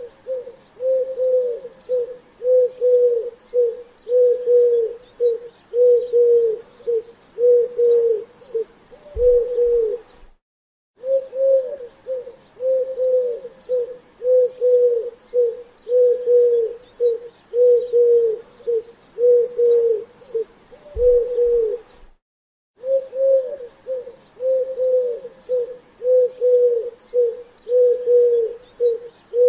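Pigeon cooing: a steady run of short, low coos, about one and a half a second, broken twice by a brief pause.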